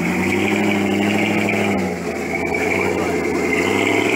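Rock-crawling Jeep's engine revving under load as it climbs a steep rock ledge, the revs rising at first, dropping about two seconds in and rising again near the end.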